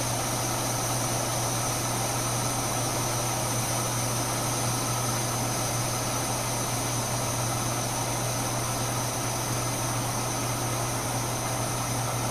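Older-model MSR Whisperlite International white-gas stove burning steadily at medium heat, an even rushing noise with a low hum, under a pot of water at a small boil.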